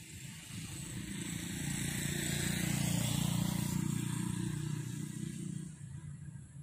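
A motor vehicle driving past, growing louder to a peak about three seconds in and then fading away.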